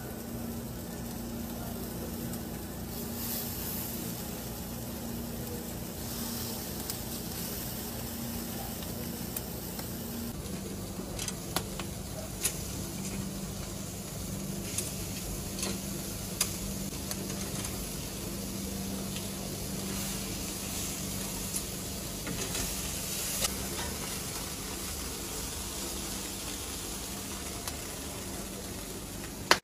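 Squid and wrapped fish sizzling steadily on a hot grill grate, with a few sharp clicks of metal tongs against the grate as the pieces are turned.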